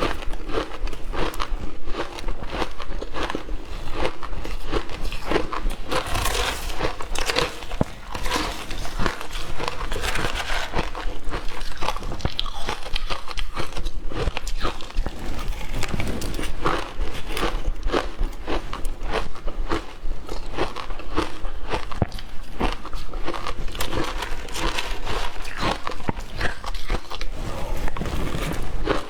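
Matcha ice with milk powder being bitten and crunched in the mouth: a steady run of sharp cracks and crunches, one after another.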